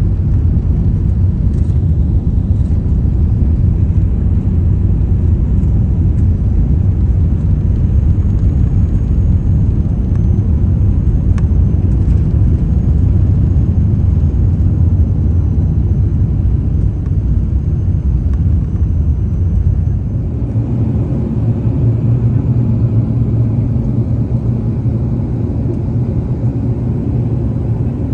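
Airliner cabin noise aboard an Airbus A380: a steady, loud low rumble of engines and airflow. The rumble shifts and eases slightly about twenty seconds in.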